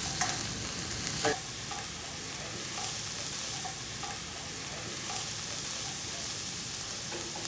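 Chopped onion, celery and carrot strips sizzling steadily in hot oil in a saucepan as they are sautéed to soften. Two brief spoon strokes against the pan come in the first second and a half.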